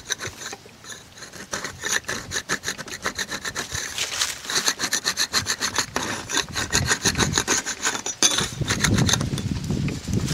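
Metal scraper blade scraping flaking epoxy off a solar panel's glass in quick, repeated back-and-forth strokes, with the scraping getting heavier in the second half.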